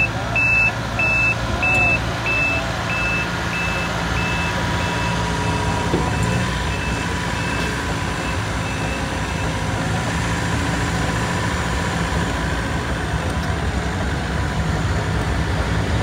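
Heavy road-paving machines (pneumatic-tyre roller, asphalt paver, tandem roller) running steadily. Over them a high reversing alarm beeps about two and a half times a second, growing fainter and stopping about six seconds in.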